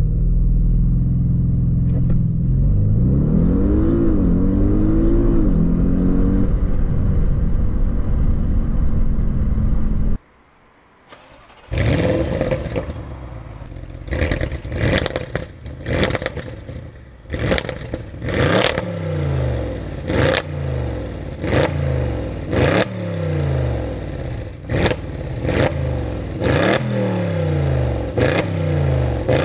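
Audi S8 Plus's twin-turbo 4.0-litre V8 running, with a couple of rising and falling revs in the first half. About ten seconds in it drops almost silent for a second and a half, then comes back in a long run of short, repeated rev blips, about one every second or so, with sharp cracks between them.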